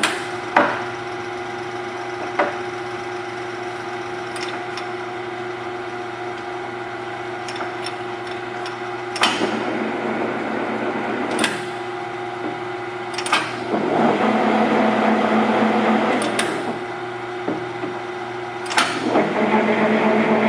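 South Bend Turn-nado CL-170E engine lathe running, its headstock gearing humming steadily, with sharp clacks as the speed-range levers are shifted and the clutch engaged. About two-thirds of the way in and again near the end the spindle runs louder and rougher at a faster speed.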